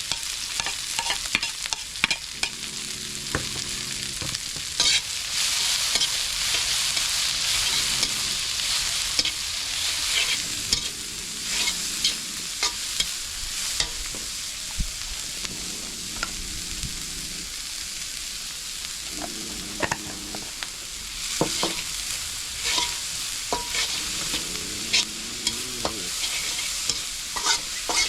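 Food stir-frying in a hot pan: a steady sizzle, with frequent scrapes and knocks of a spatula against the pan.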